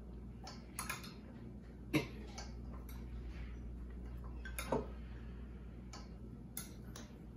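A spoon tapping and scraping against a dish and a stainless steel mixing bowl while diced onion is spooned in: scattered light clicks, the sharpest about two seconds in and another near five seconds. A low steady hum runs underneath.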